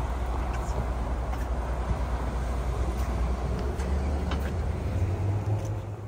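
Low, steady rumble of a Maybach sedan's engine running close by, with street noise and a few light clicks.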